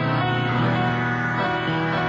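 Solo piano playing chords over a moving bass line.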